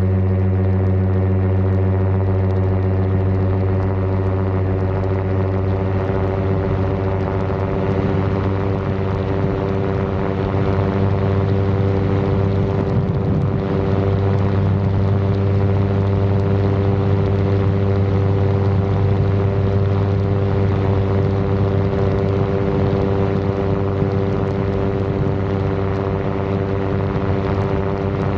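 Aerolite 103 ultralight's two-stroke engine and pusher propeller running steadily at high power through the takeoff roll and climb-out, a loud even drone with little change in pitch.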